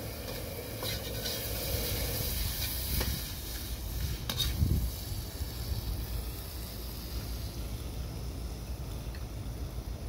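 Chicken gizzards frying in a pan: a steady sizzling hiss, with a few short clicks.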